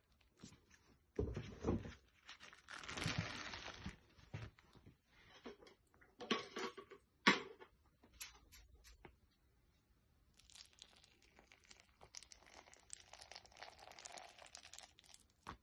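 Plastic film crinkling and tearing in irregular bursts as it is pressed down on and peeled off a tray of salted chum salmon roe. A softer, steadier rustle follows for a few seconds near the end.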